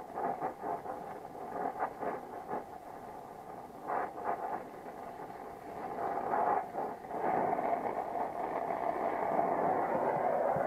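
Brazing torch flame hissing steadily while a copper refrigerant line joint is brazed, growing louder and more even about seven seconds in.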